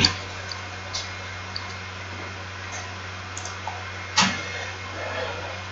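A few scattered clicks of a computer keyboard as code is edited, the sharpest about four seconds in, over a steady low hum.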